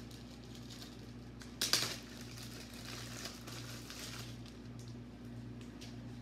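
A single sharp clatter on the kitchen counter a little under two seconds in, then a few faint handling clicks, over a steady low hum.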